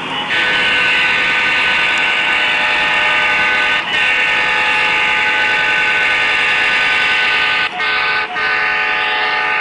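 Multi-chime diesel air horn from an HO-scale locomotive's DCC sound decoder, played through its small speaker. It sounds the grade-crossing pattern: two long blasts, a short one and a final long one.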